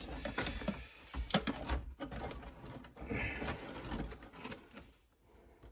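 Light rustling, scattered clicks and a few soft knocks as insulated wires are pushed and handled inside a steel breaker panel. The sound drops out about five seconds in.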